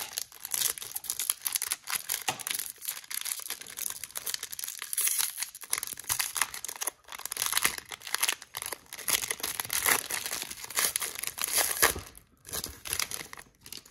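Foil wrapper of an Upper Deck Allure hockey card pack being torn open and crinkled by hand: a dense, continuous crackle of sharp crinkles that thins out near the end.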